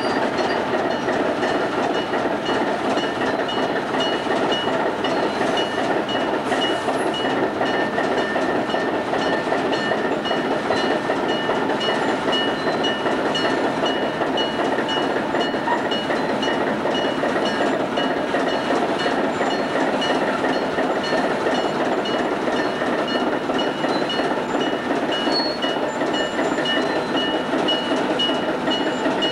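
Railway diesel engine idling steadily, with a steady high tone over the engine noise.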